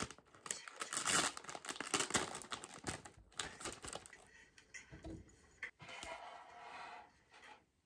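Clear plastic bakery bag crinkling and crackling as a scone is pulled out of it. The crackles are densest over the first four seconds, then thin out and go quieter.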